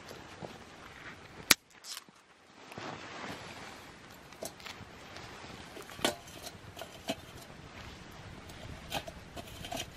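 Solo Stove Lite twig stove burning with scattered sharp clicks and pops, with the metal pot and sticks handled as the pot is lifted off. The loudest sound is one sharp snap about a second and a half in.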